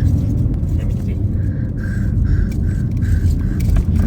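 Steady low road and engine rumble of a car being driven, heard from inside the cabin. Partway through, a run of about six short high blips sounds, roughly three a second.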